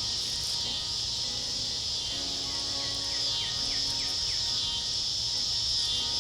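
A high-pitched chorus of insects buzzing steadily in pulses about a second long with brief gaps. Soft background music plays under it.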